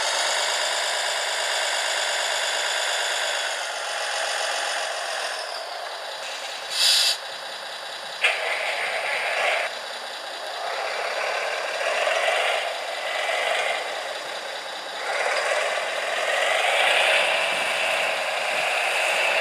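Small electric motors and gearboxes of radio-controlled construction models whining, starting and stopping in stretches, the pitch rising and falling as they change speed. A short loud hiss comes about seven seconds in.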